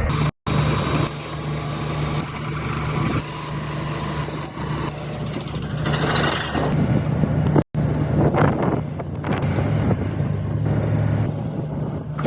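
Heavy hydraulic pile extracting and driving machine running with a steady engine drone. Louder noisy surges come about six seconds in and again near the end. The sound drops out briefly twice.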